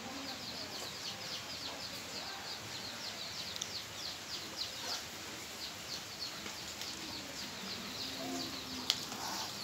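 Small birds chirping rapidly in short, high, falling chirps, several a second, with a single sharp click near the end.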